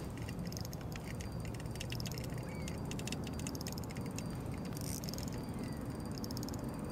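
Shimano Stella 2500 spinning reel being cranked, with fast, fine clicking over a low steady rumble.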